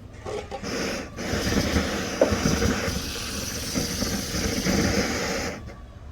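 A steady hissing noise that starts about a second in and cuts off suddenly near the end, after a couple of shorter bursts.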